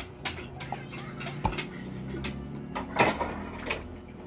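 Eating utensils clicking and clinking against a bowl: a run of short, irregular knocks, the loudest about three seconds in.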